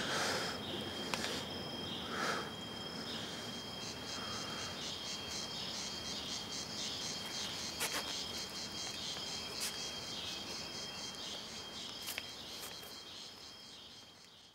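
Insects chirping steadily, a rhythmic high trill over a thin steady high whine, with a few sharp clicks scattered through it. The sound fades out near the end.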